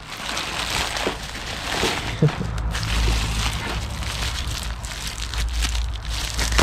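Rustling and crackling of a parcel's packaging being cut open and pulled apart by hand, with a few sharp crinkles and scrapes over a steady low hum.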